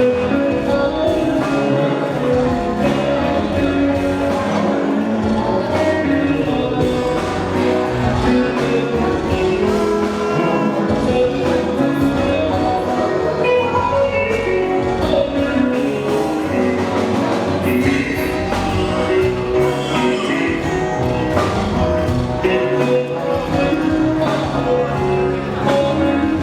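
Music with a steady bass line, guitar and some singing.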